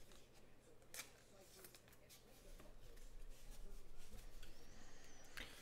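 Trading cards being handled and set down on a tabletop: a light click about a second in, soft handling noise, and a sharper tap near the end, over quiet room tone.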